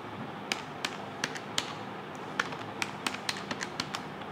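Keys of a handheld electronic calculator being pressed, a string of quick, irregular clicks as a sum is keyed in, starting about half a second in, over a faint steady hum.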